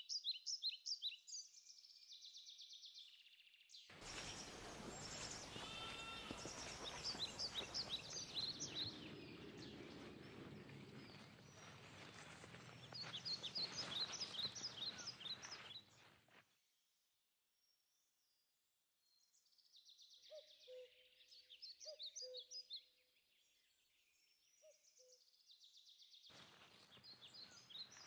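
Woodland birdsong: several songbirds singing at once in many short, high chirps and trills, over a steady hiss for the first half. After a short break, a common cuckoo gives its low two-note call twice.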